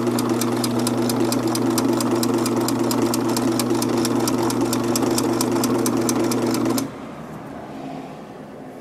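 A Singer Limited Edition household electric sewing machine stitching a seam through upholstery fabric: a steady motor hum with an even rhythm of needle clicks, several a second. It stops suddenly about seven seconds in.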